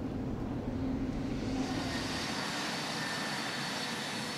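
Jet aircraft engines running on a carrier flight deck: a steady rushing noise with a low hum. A brighter, higher hiss joins about a second and a half in.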